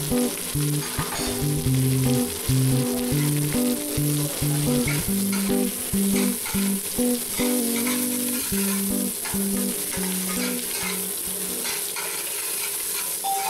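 Chopped onion, green chillies and dried red chillies sizzling in hot oil in a metal wok, stirred with a flat metal spatula that scrapes against the pan. Background music with a simple melody plays throughout.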